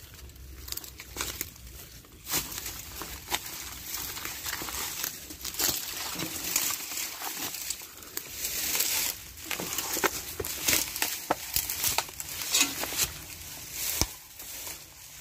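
Dry vines and dead leaves rustling and crackling, with many irregular sharp snaps.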